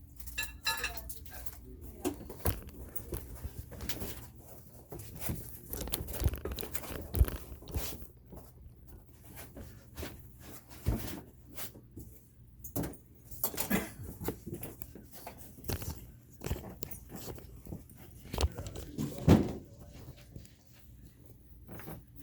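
Parts and packaging being handled during the unboxing of a laser engraver: irregular knocks, clunks and rustles, a few louder ones scattered through.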